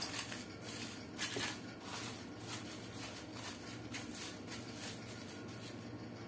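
Faint, irregular crinkling of plastic cling film stretched over a steel bowl as the bowl is handled, over a faint steady low hum.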